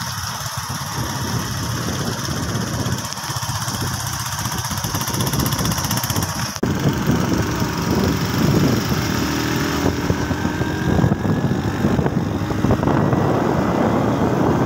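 Small motorcycle engine running while being ridden along a road, a steady mechanical noise. About six and a half seconds in it changes abruptly and becomes a little louder and heavier in the low tones.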